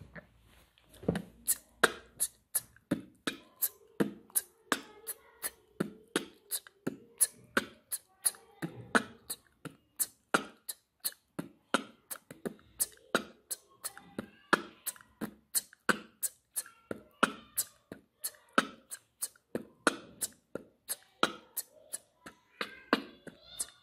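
Human beatboxing done on a single held breath: a steady, even beat of sharp mouth-percussion hits, about three to four a second, starting about a second in.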